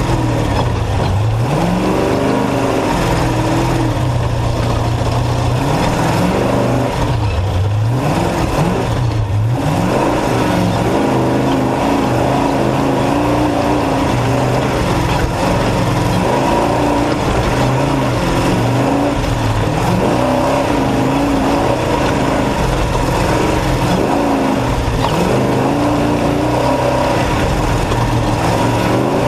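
Off-road race truck's engine revving up and dropping back again and again under racing load, over constant loud noise.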